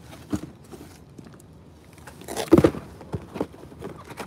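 Cardboard packaging of a PlayStation 4 console box being handled and opened: the inner cardboard tray rubbing and sliding out. A light knock comes under half a second in, and a louder scrape about two and a half seconds in.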